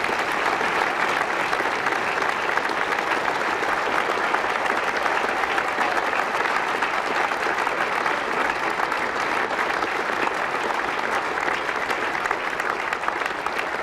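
A large crowd of guests applauding steadily, many hands clapping together in an even wash.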